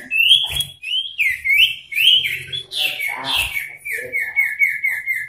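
Male common iora calling, worked up against a rival. First comes a series of whistled notes that slide up and down, then from about four seconds in a quick run of short repeated down-slurred notes, about five a second.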